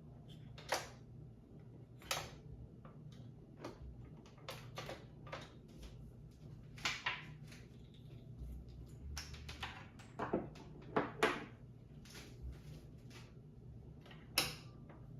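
Irregular clicks and light knocks, a dozen or more spaced unevenly, over a low steady hum; the sharpest come about two seconds in, around seven, ten to eleven, and fourteen seconds in.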